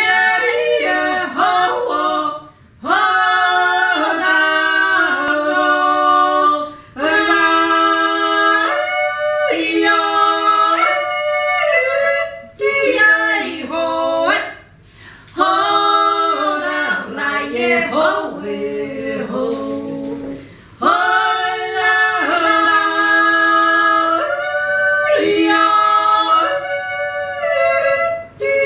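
Two women yodeling together unaccompanied, in two voice parts, holding notes and jumping between them in phrases separated by short pauses.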